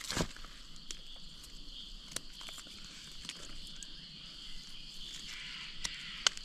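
A steady, high-pitched chorus of forest insects, with a few scattered sharp snaps and rustles underfoot.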